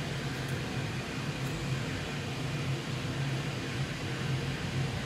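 Steady low mechanical hum with a hiss, with a few faint light clicks in the first couple of seconds.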